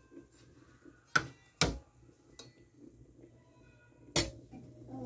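Three sharp clicks: two about half a second apart a little over a second in, and a louder one near the end, over a faint low hum.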